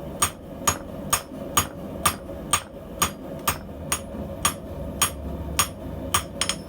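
Hammer blows on steel on an anvil, about two a second in a steady rhythm, each with a short metallic ring, as a blacksmith forges tong parts.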